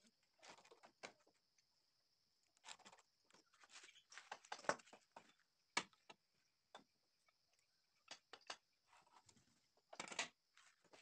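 Faint scratches of a pencil drawing lines along a steel ruler on a wooden board, with light taps and scrapes as the ruler is set down and slid across the wood. A steady faint high hiss runs underneath.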